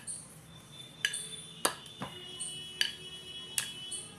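A wooden rolling pin knocking and clacking against a marble rolling board as dough is rolled out, about half a dozen sharp knocks at uneven intervals.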